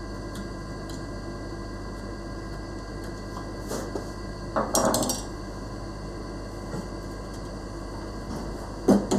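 Hand chisel paring waste from a wooden dovetail socket, with faint clicks and a brief scraping rustle about five seconds in. Near the end, sharp wooden knocks as the dovetailed rail is pushed and tapped into its socket for a test fit.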